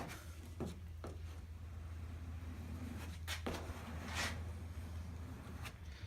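A plastic squeegee rubbing over a wet vinyl decal and its paper in a few short strokes, working the air and fluid out from under the decal, over a steady low hum.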